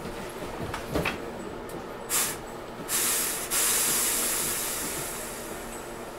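Hankyu 6300 series train standing at a station, its compressed-air system hissing: two short hisses, then a longer one that fades away. A single knock comes about a second in.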